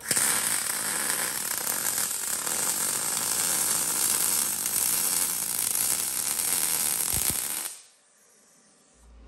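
Welding arc crackling steadily while a roll-cage tube is welded. It starts abruptly and cuts off suddenly near the end when the arc stops.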